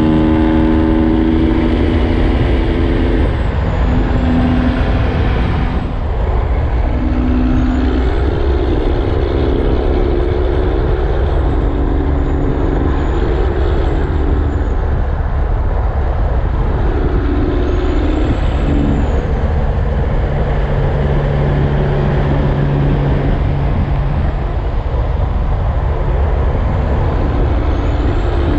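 Steady highway-speed vehicle noise: engine and road rumble from a Peterbilt 389 semi truck cruising close by, with engine tones that shift up and down in pitch now and then.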